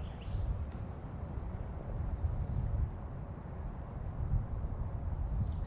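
Wind rumbling on the microphone at the riverbank, with a short high chirp repeating about once a second and a bird chirping briefly at the start and again at the end.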